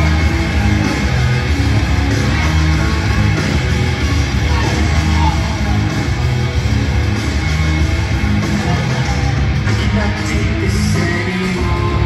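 Loud hard-rock wrestling entrance music with electric guitar and singing, played over the hall's speakers.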